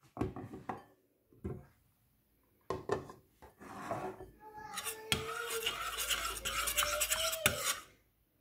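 A few clanks of a stainless steel pot lid being lifted off and set down. Then, from about three and a half seconds in until near the end, a continuous scraping of a metal ladle stirring around inside the stainless steel pot of coconut milk, with a faint squeal of metal on metal.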